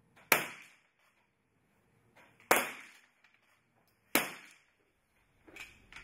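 Three single .22 rimfire free-pistol shots from different finalists on the firing line, roughly two seconds apart, each a sharp crack with a short echoing tail. A fainter knock near the end.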